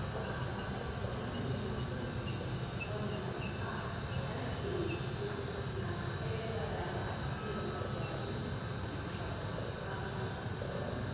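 Passenger train rolling slowly along with a thin, high, steady squeal from its wheels or brakes over a continuous rumble; the squeal fades near the end.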